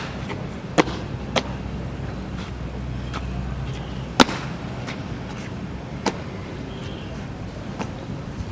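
Steady low outdoor background rumble with a few sharp, scattered clicks or taps, the loudest about four seconds in.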